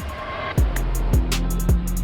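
Background music with a steady beat: kick drum about twice a second, hi-hat ticks and guitar.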